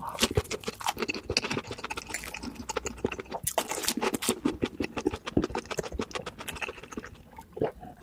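A person chewing crispy fried fast food: a quick, irregular run of crunches, with a louder burst of crunching about three and a half seconds in.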